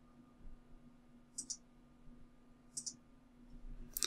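Computer mouse clicking three times, about a second and a half apart, each click a quick press-and-release pair, faint over a low steady hum.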